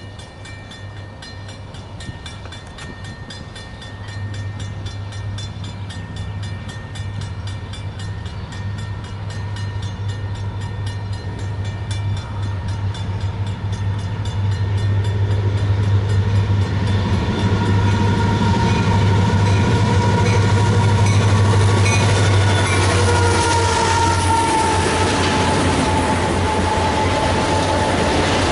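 A Canadian Pacific diesel freight train led by an EMD GP40-2 approaches and passes: a low engine drone grows steadily louder, then the cars roll by. High steady tones ride over the top and drop in pitch as the locomotives go past.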